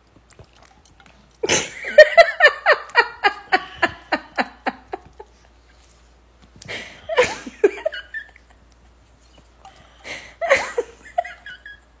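A person laughing: a long run of quick ha-ha-ha pulses, about six a second, that fades away over some four seconds, then two shorter bouts of laughter.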